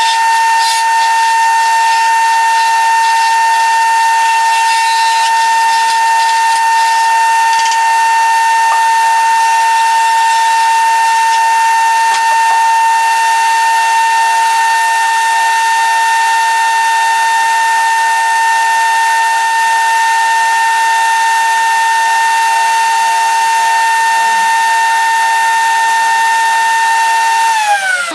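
Wood lathe motor running with a steady high whine, then falling in pitch near the end as it winds down.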